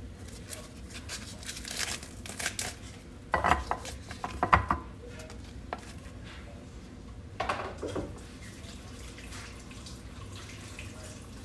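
Plastic film being torn and crinkled off a tray of ground beef, with the pack handled in a few short bursts of rustling and tapping, the loudest cluster just before the middle.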